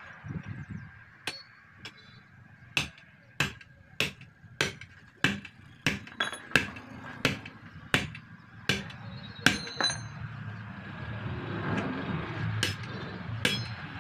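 Hammer driving steel tyre levers in at the bead of a truck tyre on its steel split-rim wheel: a run of sharp metallic blows, a little under two a second, some with a ringing tail. The blows stop about ten seconds in.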